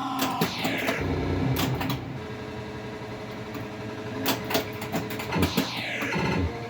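Williams Alien Poker pinball machine in play: a run of mechanical clacks from flippers and solenoids under the game's electronic sound effects. Descending pitch sweeps come near the start and again near the end, with a low hum for about a second early on.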